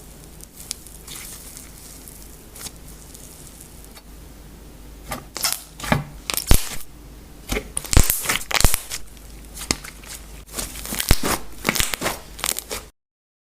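Slime being squeezed and poked, giving faint hiss and scattered clicks, then a run of sharp sticky crackles and pops from about halfway through that cut off suddenly near the end.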